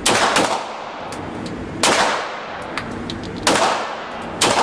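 Gunshots fired one at a time at uneven intervals, about five in all, each sharp crack trailing off in a ringing echo.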